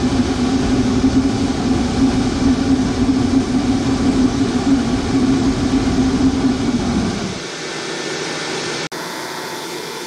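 Blower-powered furnace burner firing a long open flame: a loud steady roar with a low droning hum. About seven seconds in the roar cuts off, leaving a quieter steady whir.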